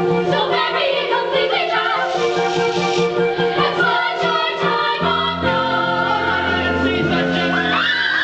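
A chorus of voices singing an operetta ensemble number over an instrumental accompaniment. A deeper bass part joins about five seconds in.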